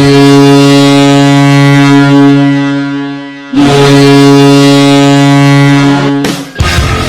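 Ice hockey arena goal horn sounding two long, low, steady blasts. The first fades out a little after three seconds, and the second starts at once and cuts off near the end.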